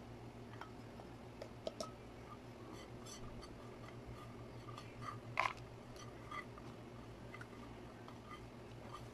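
Soft taps and scrapes of a plastic scoop and fingers gathering grated cauliflower off a plate, over a low steady hum, with a sharper knock about five seconds in.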